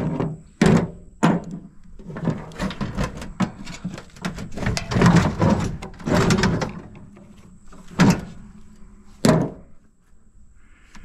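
Metal clanks, knocks and rattling from an air conditioning unit being taken apart for scrap. A few sharp knocks come near the start and again later, with a busier stretch of irregular rattling and scraping in the middle.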